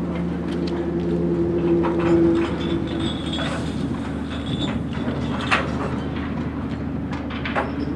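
Steady low engine drone, with scattered sharp clanks and knocks over it, one louder about five and a half seconds in.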